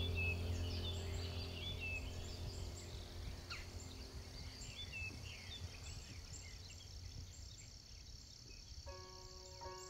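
Woodland ambience: small birds chirping and calling over a faint steady insect drone. A low background music drone fades out over the first few seconds, and music with held, piano-like notes starts near the end.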